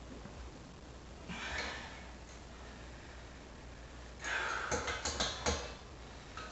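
A person breathing out heavily about a second in, then a louder breath mixed with several light metal clicks about four seconds in, as a wrench is handled at the CO2 regulator.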